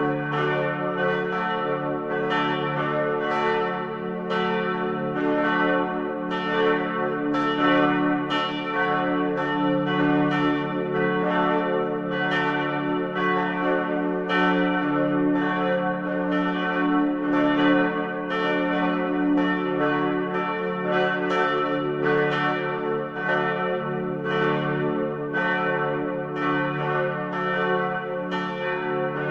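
Several church bells ringing one after another without pause, a new stroke about every three-quarters of a second, their tones overlapping and humming on beneath the strikes.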